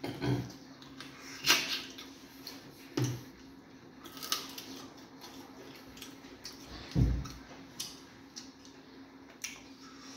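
Eating by hand close to the microphone: wet mouth smacks and chewing clicks at irregular intervals, with a few soft low thumps. A faint steady hum runs underneath.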